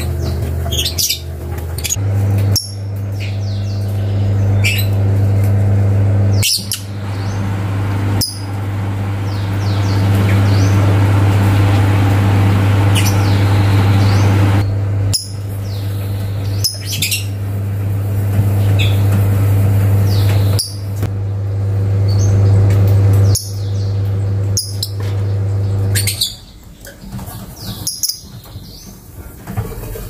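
Lovebirds chirping in short, sharp, high chirps scattered throughout, over a steady low hum that stops near the end.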